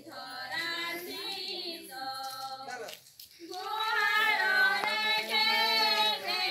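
A group of children and women singing a song together, with held notes; there is a short pause about three seconds in, after which the singing comes back louder.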